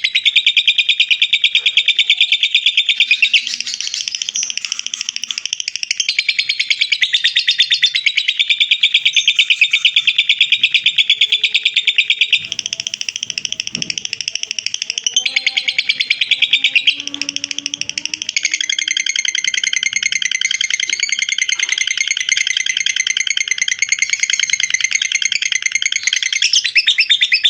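Lovebird's long unbroken 'ngekek' song: a rapid, continuous chattering trill that shifts in pitch and pattern every few seconds without pausing.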